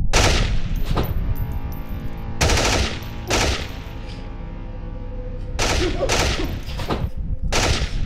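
Pistol gunshots, about six in all, fired unevenly a second or two apart. Each is a sharp crack with an echoing tail.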